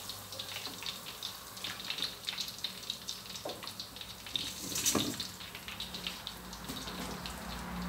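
Hot oil sizzling and crackling in a steel wok, with sausages frying in it. A sharp metallic knock about five seconds in.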